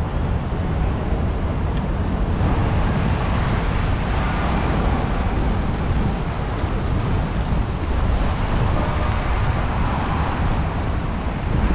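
Wind buffeting the microphone as a steady low rumble, over rain and city street traffic.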